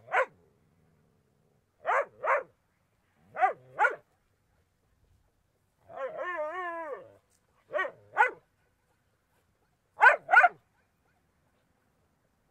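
Small dog barking, mostly in quick pairs of sharp barks every couple of seconds, with one longer drawn-out call about six seconds in.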